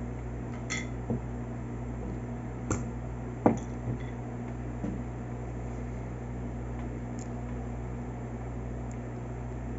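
A few light clinks and taps of a utensil against a glass bowl while sesame oil is measured into the rangoon filling, the sharpest about three and a half seconds in, over a steady low hum.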